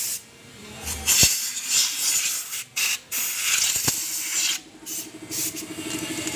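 Aerosol cleaner spraying in hissing bursts onto the scooter's CVT parts during cleaning, with rubbing between sprays. From about four seconds in, an engine idling with an even pulse starts up.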